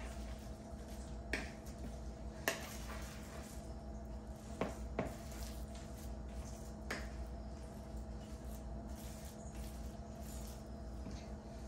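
A utensil stirring a wet chicken, egg and bread mixture in a plastic mixing bowl: soft squishing with a few light knocks against the bowl, over a steady low hum.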